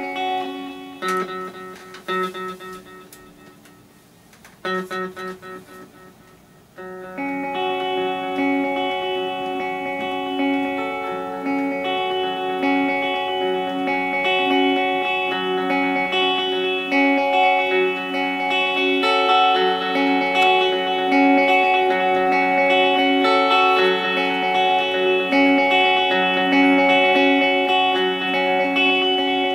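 Electric guitar played through an Ibanez DE7 delay/echo pedal, now working after repair, and a Vox combo amp, the notes ringing on with delay. A few notes fade away at first; about seven seconds in, louder, fuller playing starts and carries on.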